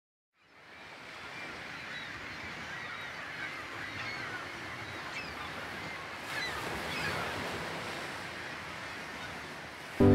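Sea surf washing steadily with seabirds calling now and then, fading in after a brief silence. A loud music chord strikes right at the end.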